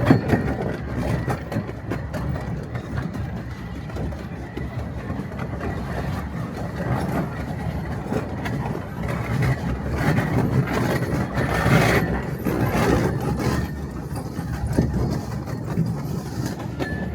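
Miniature railway train running on its track: a steady rumble of wheels on rails with scattered clicks, growing louder for a few seconds past the middle.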